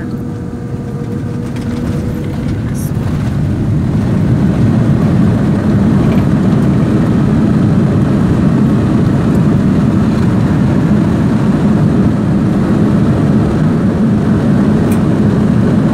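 Jet airliner cabin noise on the landing rollout: a deep, steady rumble of engines and runway that swells over the first few seconds and then holds loud, as the engines spool up for reverse thrust with the wing spoilers raised.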